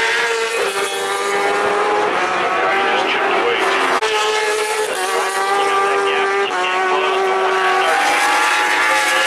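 Superbike racing motorcycles at high revs passing through a fast section, several engine notes overlapping and sliding in pitch as they go by, with a brief break about four seconds in.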